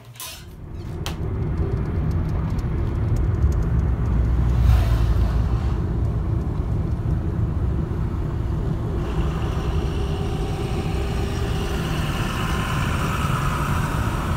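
Steady low rumble of a moving vehicle, engine and road noise together, swelling in over the first two seconds after a couple of clicks at the start.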